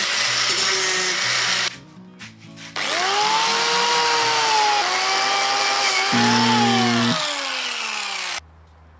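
Angle grinder cutting through a steel flat bar clamped in a vise. After a short break a second angle grinder spins up with a rising whine and grinds across the top of the bar, its pitch falling near the end before the sound cuts off.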